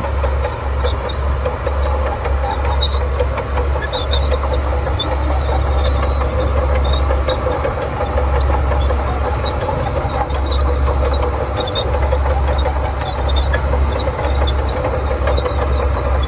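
Shantui DH17C2 bulldozer's diesel engine running steadily under load as the dozer works, with a deep steady rumble and light scattered clicks over it.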